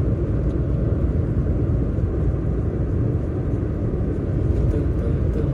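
Steady low rumble of a car driving along the road, with engine and tyre noise heard from inside the cabin.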